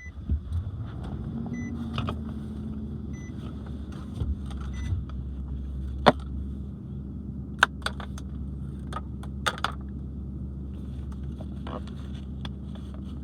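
Car engine starting and settling into a steady idle, its pitch flaring up and falling back about a second in. A short warning chime beeps four times, evenly spaced, and scattered sharp clicks and rattles follow.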